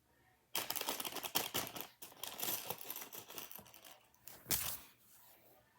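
Hands rummaging through and handling tiny plastic Nanoblock pieces and their packaging: a busy run of crinkling rustles and small clicks starts about half a second in, with the sharpest clatter near the middle.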